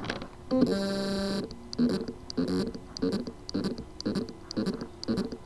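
A Seagate desktop hard drive's spindle motor, with loose motor contacts on its circuit board, trying to spin up. It gives a steady pitched hum for about a second, then short pulses about twice a second. This is the sign of a motor that can spin but cannot reach its full speed.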